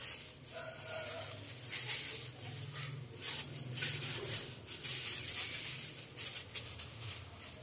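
Disposable plastic gloves crinkling in short, irregular rustles as hands handle sticky cold-rice dough in a bowl, over a steady low hum.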